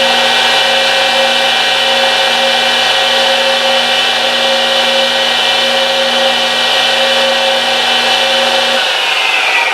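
Wet/dry shop vac running steadily with a constant whine, pulling air through a homemade dust-collection hose adapter. Near the end its whine slides lower in pitch.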